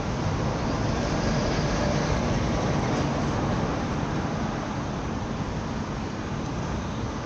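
Steady city traffic noise, easing off slightly in the second half.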